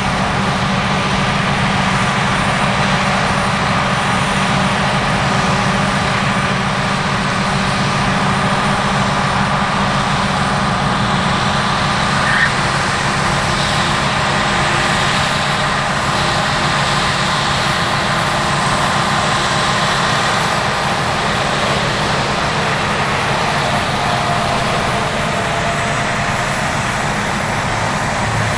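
Heavy diesel harvest machinery running steadily under load, with a brief click about twelve seconds in.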